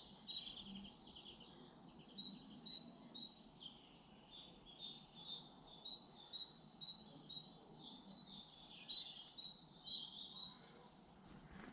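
Small garden songbirds singing: bursts of quick, high repeated chirping notes every couple of seconds, with short pauses between, over faint steady background noise.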